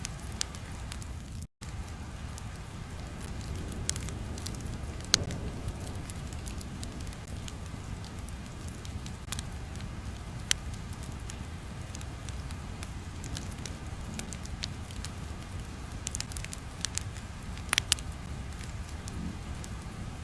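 Crackling fire ambience: a steady low rumble with scattered sharp crackles and pops. The sound briefly drops out about a second and a half in.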